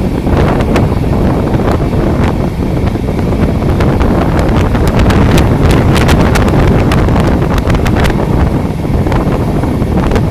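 A passenger train running along the track, heard from the window of its last coach: a steady low rumble with wind buffeting the microphone. About halfway through comes a quick run of sharp clicks and clacks as the wheels cross rail joints and points on the way into the station.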